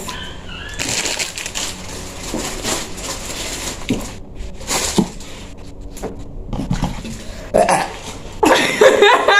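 A woman belching long and rough after gulping down Pepsi, lasting about three seconds, followed by a few short clicks and a voice near the end.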